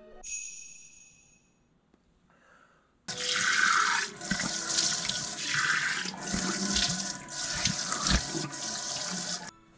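A short high ringing tone at the start, then a washbasin's shower-head faucet turns on about three seconds in: running water splashing as hands rinse foam face wash off a face. The water cuts off suddenly near the end.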